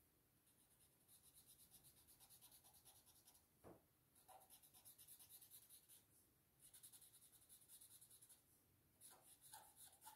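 Faint pencil-on-paper scratching: quick back-and-forth shading strokes in several short spells with brief pauses between them.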